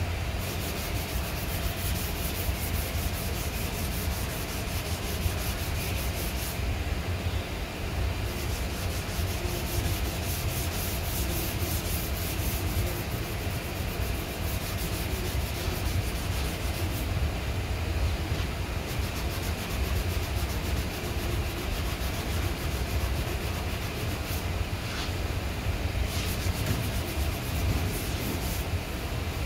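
Hand sanding of body filler on a car's rear quarter panel with a sanding pad: continuous back-and-forth rubbing strokes over a steady low hum.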